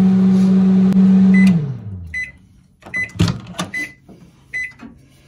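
Microwave oven running with a steady hum that winds down and stops about one and a half seconds in as the heating cycle ends, followed by a string of short high beeps about 0.8 s apart and a clunk.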